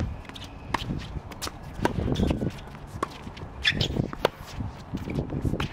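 Tennis rally on a hard court: a series of sharp pops from the ball being struck by rackets and bouncing on the court, the loudest about four seconds in, with players' quick footsteps in between.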